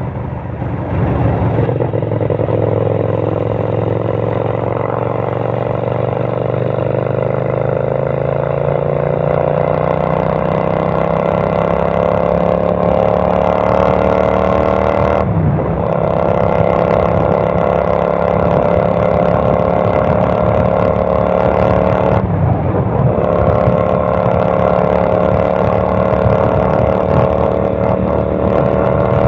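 Kasinski Mirage 250 motorcycle's V-twin engine running loud through its exhaust, the revs climbing slowly over the first half and then held, with two brief sharp drops in the engine note, about halfway and near three quarters of the way through.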